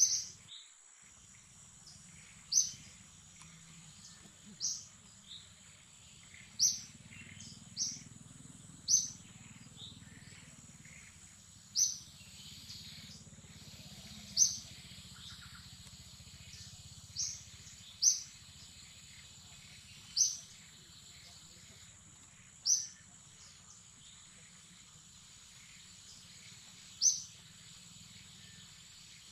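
A bird repeating a short, high, downward-slurred chirp about every two seconds, over a faint steady high-pitched whine and a low hum of outdoor ambience.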